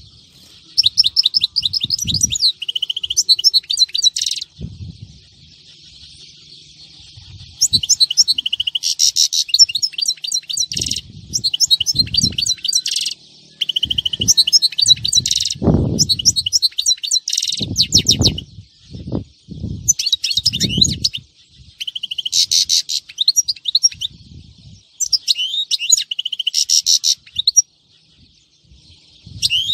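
European goldfinch singing in bursts of rapid twittering phrases, with a gap of about three seconds after the first burst. A few low thuds sound among the song around the middle.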